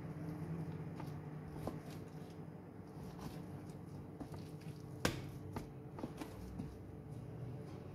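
Chef's knife slicing raw chicken breast into strips on plastic sheeting: soft squishy cuts with scattered light taps of the blade, the sharpest tap about five seconds in.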